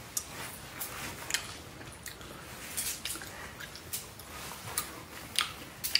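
Faint, irregular small clicks and smacks close to the microphone, about a dozen spread unevenly, over low room hiss.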